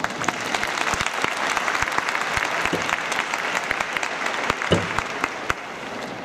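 Crowd applauding, a dense patter of many hands clapping that thins out near the end.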